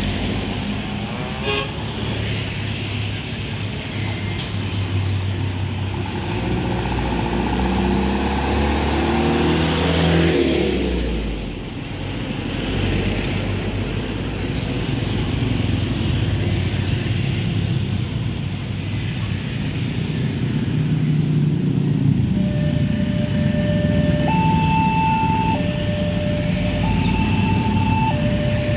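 Heavy mixed road traffic of buses, trucks, cars and motorcycles running past, with one vehicle going by with a falling engine pitch about ten seconds in. After about twenty-two seconds an electronic two-tone warning starts, alternating a low and a high tone every second or so: the level crossing's alarm beginning to sound.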